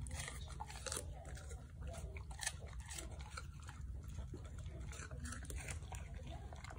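A golden retriever crunching and chewing pieces of apple: a run of irregular crisp crunches, the loudest a little over two seconds in.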